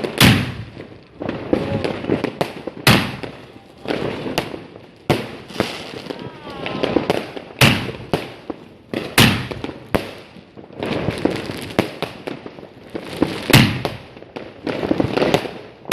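New Year fireworks going off: a string of sharp bangs, roughly one every second or two, each followed by a short echoing tail.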